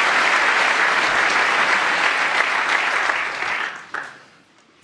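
Arena audience applauding a good pot in a snooker match, a steady clapping that dies away about three and a half seconds in, followed by a single light knock.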